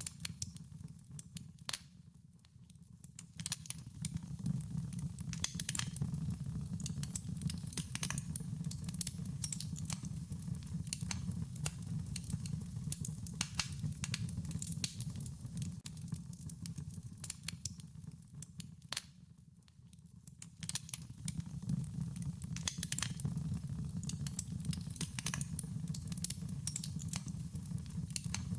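Wood fire crackling, with frequent sharp pops and snaps over a low, steady rumble of flames; it eases off briefly twice, about two seconds in and near the middle.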